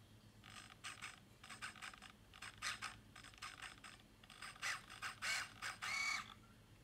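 Small geared hobby servo whirring in a string of short stepwise bursts as the live-steam regulator servo drives its arm up to full steam, then a louder whine near the end as it swings back to closed.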